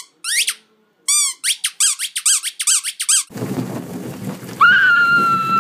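Spiky rubber squeeze ball squeaked over and over, about nine short high squeaks in three seconds. Then comes a low rumbling rustle, with a steady high squeal held for about a second near the end.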